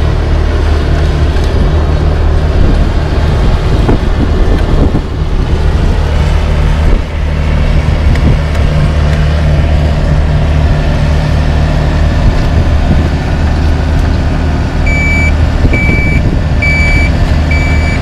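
Heavy diesel engines running steadily at close range, from the asphalt paver and the dump truck beside it. About three-quarters of the way through, a reversing alarm starts beeping, a little faster than once a second.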